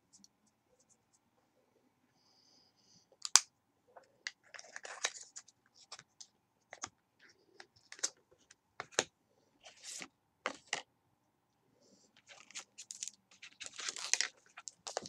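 Irregular clicks, taps and short scratchy rustles of makeup being handled, with one sharp click about three seconds in and a busier run of them near the end.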